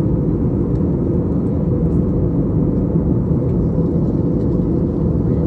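Steady low rumbling drone of an aircraft in flight, unchanging throughout.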